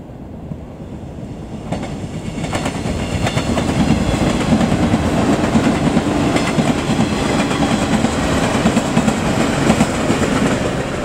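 A six-car 115 series electric multiple unit running past close by, its wheels clacking over rail joints. The rumble builds over the first few seconds as the train draws near, stays loud while the cars pass, and eases a little near the end.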